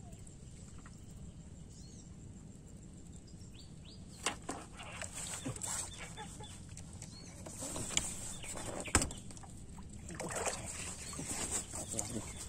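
Water splashing and churning as a hooked carp fights at the surface close to the bank, mixed with irregular rustles and a couple of sharp knocks. Small birds chirp a few times before the splashing starts, a few seconds in.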